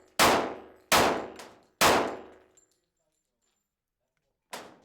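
Glock 36 .45 ACP pistol fired three times in quick succession, a little under a second apart, each report ringing out and dying away; the pistol is cycling normally with its original slide stop back in. A fainter single sharp report comes near the end.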